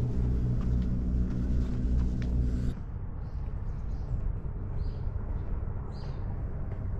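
A steady low engine hum that cuts off abruptly about two and a half seconds in. After it there is quieter open-air noise with a few faint, short high chirps.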